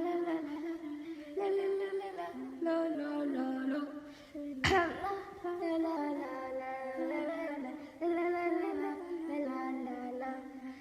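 A high voice singing a wordless tune, holding each note for about half a second to a second and stepping between notes. A sharp knock sounds about halfway through.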